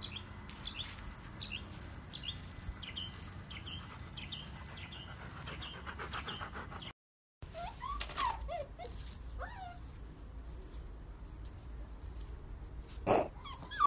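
Birds chirping in short repeated calls, then a retriever puppy whimpering in a few short wavering whines, with one loud, sharp sound near the end.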